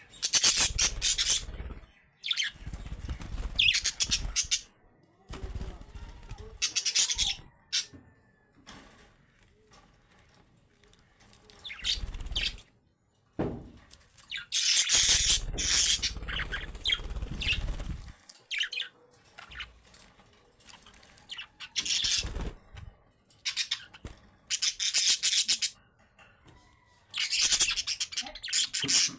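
Budgerigars chattering and chirping in repeated bursts of one to a few seconds, with quieter gaps between.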